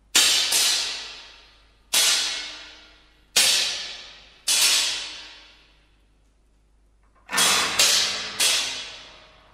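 Contemporary ensemble music: about eight sharp, cymbal-like metal percussion strikes, each ringing down over about a second. They come at irregular intervals, with a gap of a second and a half before a quick cluster of three near the end.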